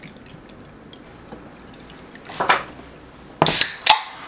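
Soju trickling faintly from a glass bottle into a shot glass, then a beer can cracked open about three and a half seconds in: a sharp pop with a short fizzing hiss, and a second click half a second later.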